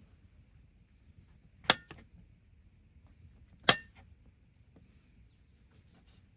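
Two sharp knocks about two seconds apart, each with a short metallic ring and a faint second tick just after.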